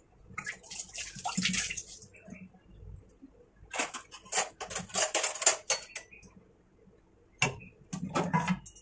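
Metal kitchen utensils and dishes being handled, clinking and clattering in three bursts of a second or two each.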